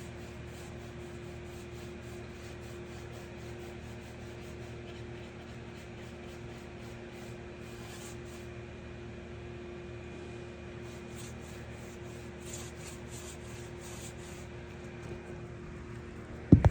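Wood being rubbed or sanded by hand in faint, rhythmic strokes over a steady hum, with two sharp knocks near the end.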